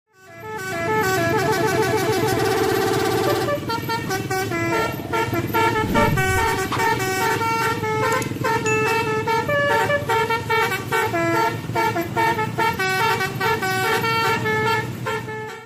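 Bus 'telolet basuri' multi-tone air horn playing a tune of stepped notes, with a quicker run of repeated notes over the first three and a half seconds. A low falling tone sounds about six seconds in.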